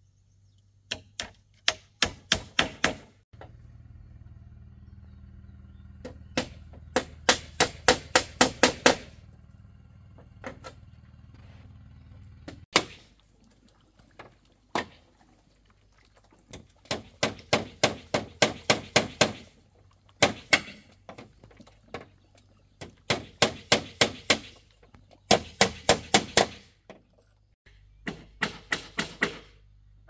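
Hammering: quick runs of sharp blows, several a second, broken by short pauses, as when nails are being driven.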